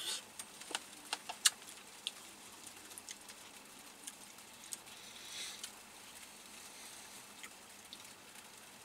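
Someone eating: soft chewing with a scatter of small sharp clicks and smacks, the loudest about a second and a half in, and a short soft hiss about five seconds in.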